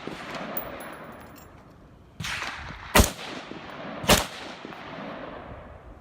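Rifle shots at an outdoor shooting range. A fainter shot comes about two seconds in, then two loud sharp shots about a second apart, each trailing off into an echo.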